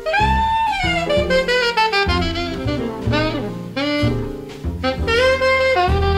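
Jazz ballad recording: an alto saxophone plays a slow melody over double bass, opening with a long phrase that slides downward, then shorter phrases and a held note near the end.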